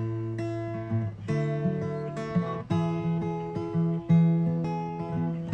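Intro music: acoustic guitar strumming chords, a new strum about every half second to a second.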